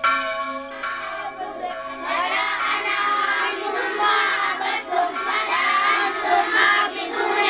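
A church congregation singing together. It opens on one held note, and about two seconds in it swells into many voices singing at once.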